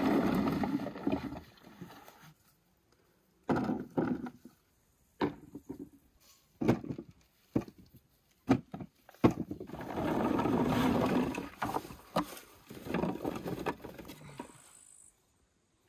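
Irregular rustling and knocking from things being handled, coming in bursts a second or two long with short gaps and several sharp knocks between them; the sharpest knock comes just past the middle.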